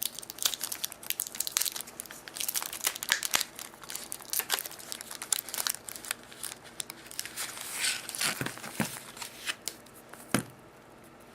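Wrapper of a chocolate surprise egg crinkling and tearing as it is unwrapped by hand, in many quick crackles, with a sharper knock about ten seconds in.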